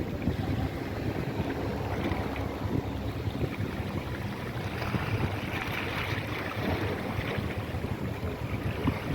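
Wind buffeting the microphone in a steady rumble over the wash of water, with a faint low hum underneath and a brief rise in hiss about five seconds in.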